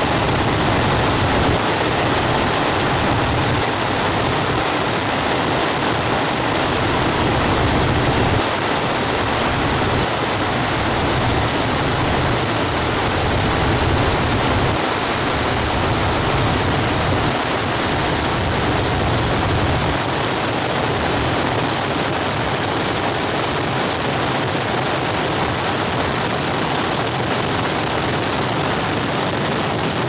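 Aircraft engine and rushing air heard from inside the cabin: a steady, loud noise with a low rumble underneath.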